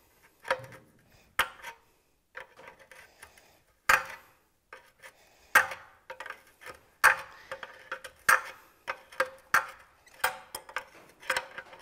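A wrench clinking against a metal oil-line fitting at a motorcycle oil tank as the line is undone and handled. The taps are short, sharp and light, coming irregularly with short pauses between them.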